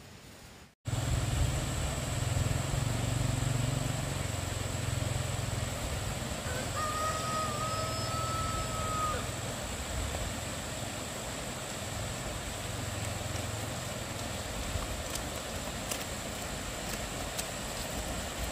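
A rooster crows once, a single long call about seven seconds in, over a steady low rumble.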